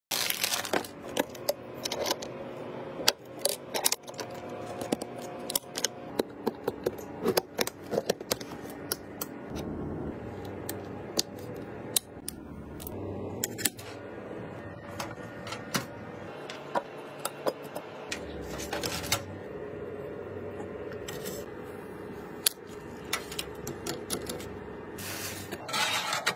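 Computer parts being handled and fitted by gloved hands: a steady run of light clicks, taps and knocks of hardware on a desk and into the board. An anti-static plastic bag crinkles briefly at the start.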